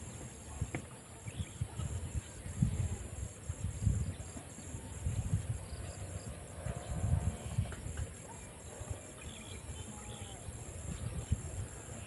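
Insects, such as crickets, chirring steadily in a high band over an open rice field, with gusts of wind buffeting the microphone in low irregular rumbles.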